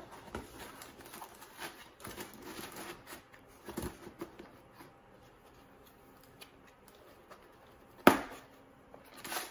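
Segmented plastic cable chains clicking and rattling as they are handled and pressed into a foam insert, with light rustling. One sharp knock about eight seconds in is the loudest sound.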